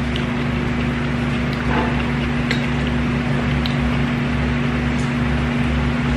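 Steady mechanical hum with a few faint, light clicks.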